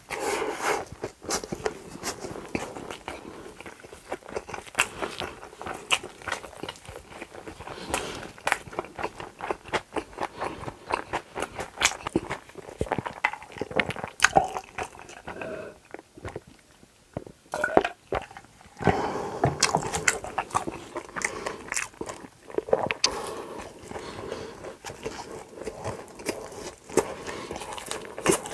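Close-miked eating: crunchy bites and chewing with many sharp crackles, pausing briefly a little past halfway before the crunching resumes.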